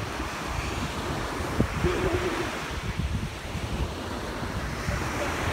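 Ocean surf washing steadily onto the beach, with wind buffeting the microphone.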